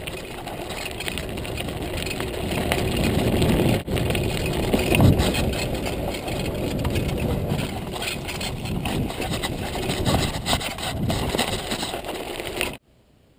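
Montague Paratrooper Pro mountain bike riding over a gravel trail and a bridge deck: steady rumble of tyres and wind on the handlebar-mounted microphone, with dense rattling of the bike and mount. Cuts off abruptly near the end.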